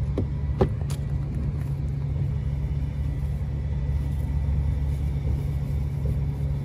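A steady low engine drone, like a machine idling. A single sharp click about half a second in.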